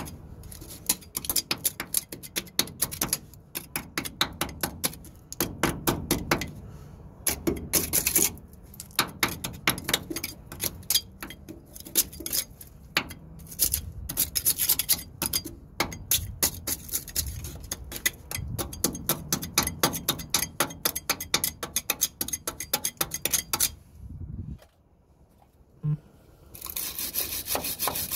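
Rapid back-and-forth scraping strokes of a hand tool on metal, cleaning out the truck's suspension bolt hole. The strokes break off for about two seconds near the end, with a single knock in the pause, then start again as a denser rasping.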